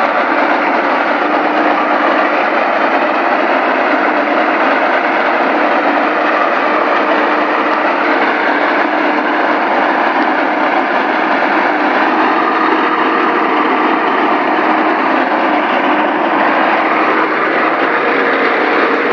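Rolls-Royce Merlin 27-litre V12 aero engine fitted in a car, running steadily at a constant speed with no revving.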